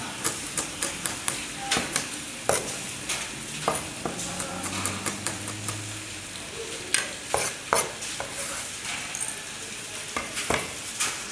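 Steel cleaver chopping chillies on a wooden chopping board, about three chops a second, stopping about two seconds in. After that come scattered knocks and clicks as the cut chillies are gathered off the board into a small ceramic bowl.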